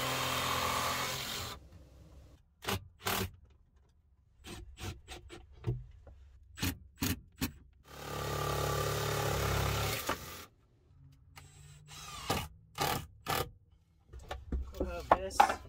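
Cordless jigsaw cutting plywood in two runs: one ending about a second and a half in, another lasting about two and a half seconds from about eight seconds in. Between and after the cuts come short knocks and clatter of boards being handled.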